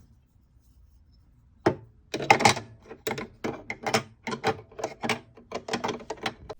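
Irregular clicks and taps of sewing machine parts being handled and fitted, as cover plates go back onto the machine. The clicks begin after a short quiet spell and come in a quick uneven run.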